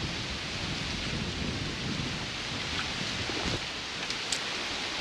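A strong gust of wind rushing through the treetops, a steady hiss of tossing leaves, with wind rumbling low on the microphone.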